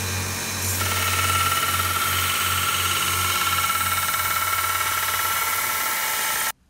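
Bench belt sander running with a workpiece pressed against the belt: a steady motor hum that pulses slowly under a grinding hiss, with a steady high whine from about a second in as the piece bears on the belt. It cuts off abruptly near the end.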